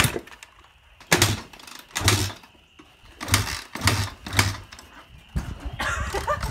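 KTM 300 two-stroke dirt bike being kicked over again and again, about one kick a second, each a thump as the engine spins briefly without catching. The dead engine won't fire even with a new spark plug, and the riders take it for fried.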